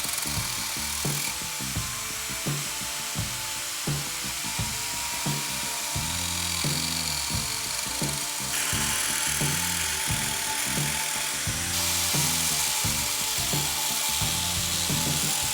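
Background music with a steady beat, over the steady hiss of a knife blade being ground on a sand-coated CD disc spun by an angle grinder. The grinding hiss jumps in level abruptly a few times.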